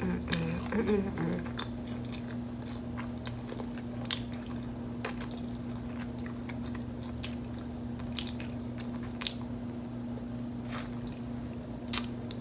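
Close-up chewing and biting of a crunchy hard-shell taco: scattered sharp crunches, about one every second or two, with the loudest crunch near the end. Under it runs a steady low hum.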